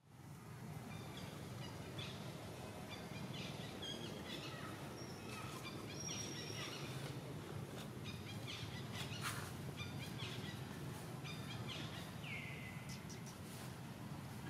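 Outdoor forest ambience: scattered short bird chirps and calls over a steady low hum, with a single falling call near the end.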